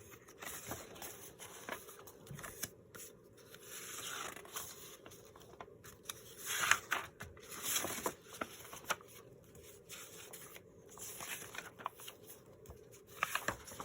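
Sheets of paper and book pages rustling and sliding against each other as they are shuffled and stacked, in irregular soft bursts with a louder rustle about halfway through.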